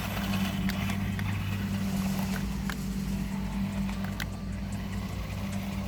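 Toy 4x4 RC rock crawler driving: its small electric motor and gears run with a steady low hum, with scattered clicks and rattles.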